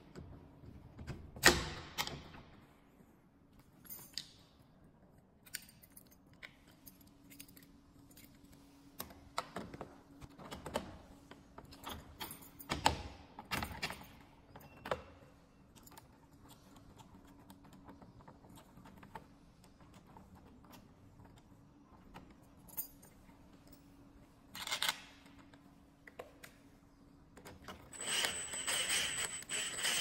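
Scattered clicks, knocks and rattles of metal door hardware being fitted into an aluminium door: handle, spindle and a key cylinder with its keys jangling. Near the end, a cordless drill-driver runs with a steady whine as it drives a screw into the door edge.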